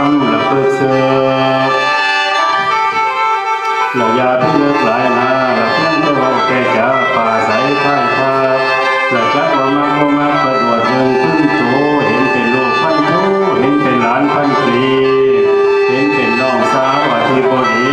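Lao khaen, a bamboo free-reed mouth organ, playing held chords and a running melody, with a man singing mor lam over it. The low notes drop out about two seconds in and come back about four seconds in.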